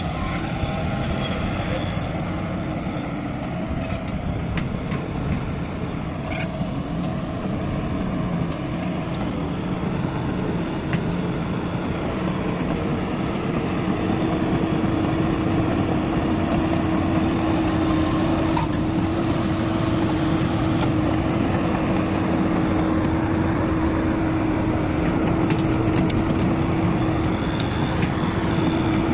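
Caterpillar E200B tracked excavator's diesel engine running steadily; about halfway through a steady hum comes in and the sound grows a little louder.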